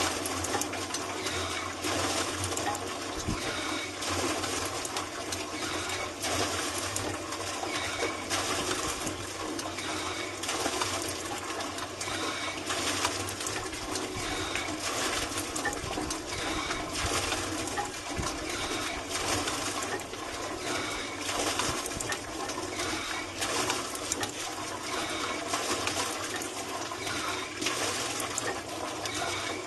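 Water gushing from the spout of a WaterBuck deep-well lever hand pump into a 55-gallon drum, surging about every two seconds with each pump stroke.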